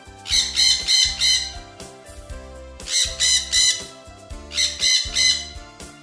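Cartoon bird-call sound effect: three runs of quick, high calls a second or so apart, over a light keyboard music loop.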